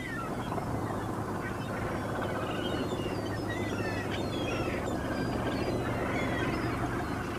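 A flock of gulls calling, many short overlapping cries, over a steady low hum.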